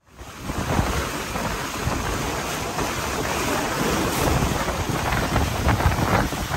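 Wind buffeting the microphone over water rushing and splashing past the stern of a sailing catamaran under way. It fades in over the first half second, then runs on as a loud, gusty rumble and hiss.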